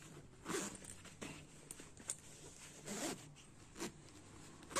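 Zipper on a quilted winter jacket being pulled back and forth in several short rasping strokes, worked by hand to check a repair.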